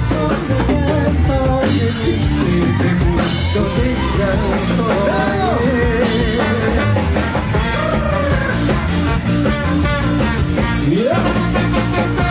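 Amplified pop music with a man singing into a microphone over a steady bass-and-drum beat. About eleven seconds in, a pitch slides sharply upward.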